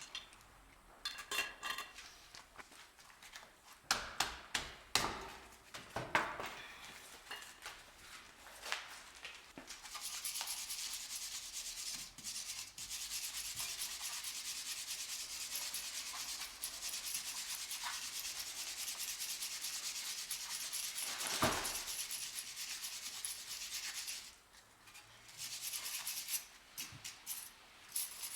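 Scattered knocks and clinks of hand work on a car wheel, then a long, steady, hissy scrubbing from about a third of the way in, with one sharper knock partway through and a brief pause near the end.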